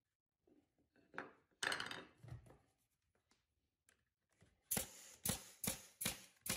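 Pneumatic crown stapler firing five times in quick succession, about two to three shots a second, tacking plywood pieces together. A few light knocks of the wood come first.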